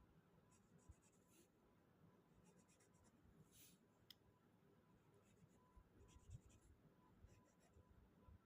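Faint scratching of drawing strokes on a surface, in short runs of quick strokes several times. A faint thin high tone comes and goes beneath them.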